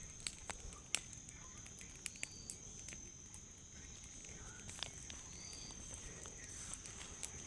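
Wood bonfire crackling with sparse sharp pops, the loudest about a second in, over a steady high-pitched insect drone.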